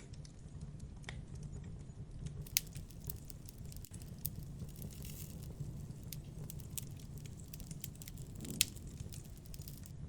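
Campfire crackling, with scattered sharp clicks and pops over a steady low rumble; two louder pops stand out, about two and a half seconds in and again near the end.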